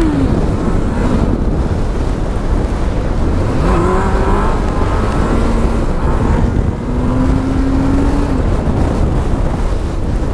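Honda Hornet's inline-four engine on its stock exhaust, running under way, with heavy wind rumble on the microphone. About three and a half seconds in, the revs drop, then climb again.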